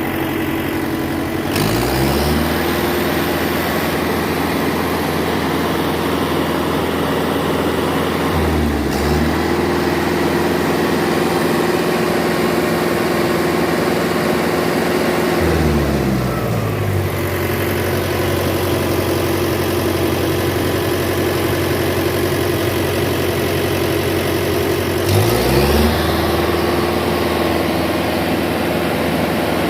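Car engine, which has a failed turbocharger, is raised from idle to a steady higher rpm and held. It dips briefly, drops back to idle about halfway, then is raised again near the end.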